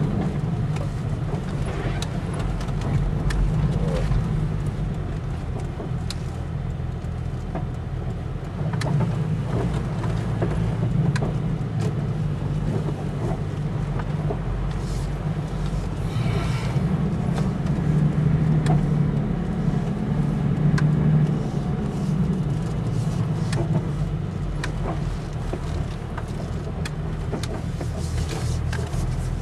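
A 4x4 vehicle driving, its engine running with a steady low drone and many short knocks and rattles throughout.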